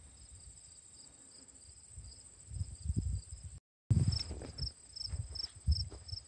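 Insects chirping in grass and brush: a steady high buzz with a sharper chirp repeating a few times a second, over low dull bumps.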